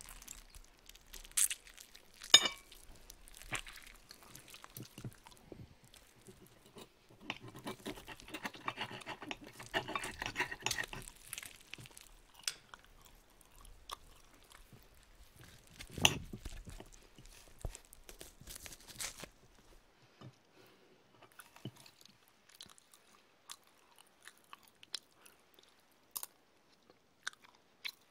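Close-up eating sounds: a metal fork and knife clinking sharply on a plate, with chewing and crunching of food. The sounds thin out to small scattered clicks in the last third.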